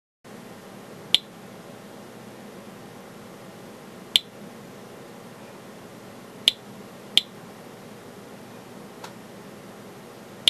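SE International Inspector EXP Geiger counter with a pancake probe clicking at normal background radiation: about six sharp single clicks at irregular intervals, one of them faint, over a low steady hiss.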